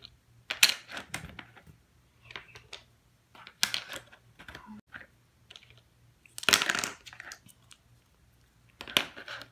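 Interlocking toy building blocks handled by hand on a tabletop: about five separate clacks and scuffs as pieces are pushed together and set down, the longest and loudest a little past the middle.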